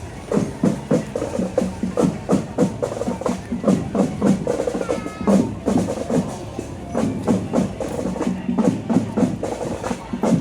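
Marching drum band playing a steady parade beat, with snare and bass drum strokes several times a second.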